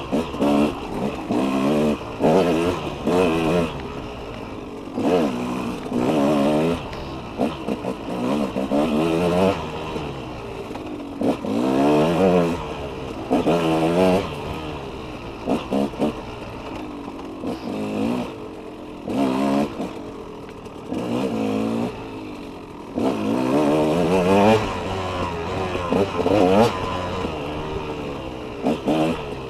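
KTM 200 two-stroke dirt bike engine, heard up close from the bike, revving up and falling back again and again as the throttle is worked on a tight trail, roughly every second or two.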